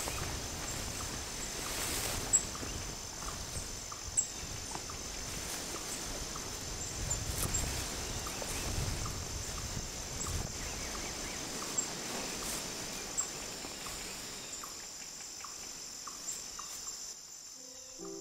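Insects trilling steadily in a high, even drone, with scattered sharp clicks and brushing of footsteps through tall grass and bamboo.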